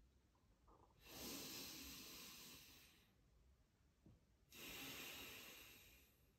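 Slow, deep controlled breathing of chi gung practice: two long breaths, each about two seconds, each starting sharply and fading away.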